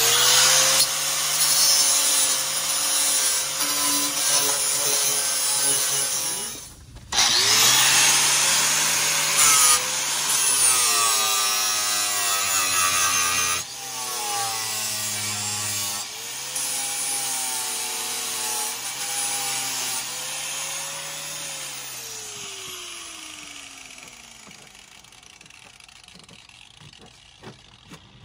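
Angle grinder with a flap disc grinding the cut sheet-steel edge of a van's rear wheel arch. The motor whine dips in pitch as the disc bites into the metal. It stops briefly about seven seconds in, starts again, and near the end spins down with a falling whine.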